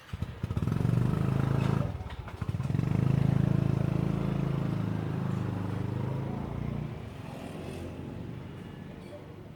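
A motor vehicle engine running, loud and low with a pulsing beat; it dips briefly about two seconds in, then fades over the last few seconds.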